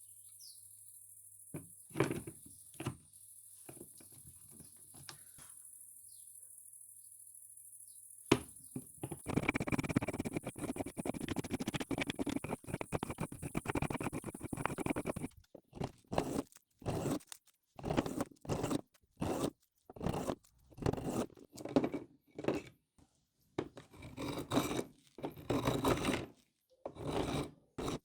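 Hand scraping on a workpiece: a sharp knock, then about six seconds of fast, continuous scraping, then separate strokes about one a second with short gaps between them. Faint bird chirps and a few light knocks come first.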